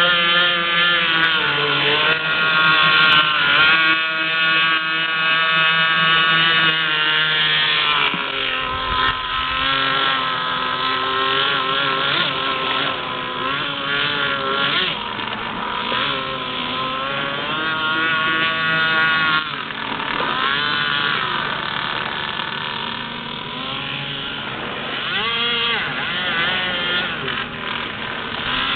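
RCMK inline-twin engine of a 65-inch GTX radio-controlled speedboat running out on the water, its note rising and falling over and over.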